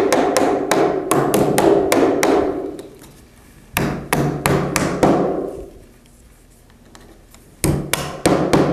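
Mallet blows driving plastic nails into the end cap of a DirectAire 4413/4113 poultry-house wall inlet, pinning the cap to the profiles once the holes line up. Quick runs of taps, each with a brief ring from the housing: a long run at the start, a shorter one in the middle, then a pause before more taps near the end.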